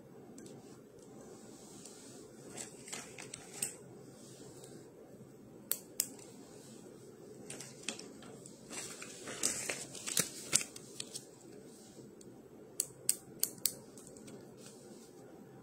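Handling noise: scattered small clicks and rustles, busiest about ten seconds in, with a quick run of three clicks near the thirteenth second, over a low steady room hum.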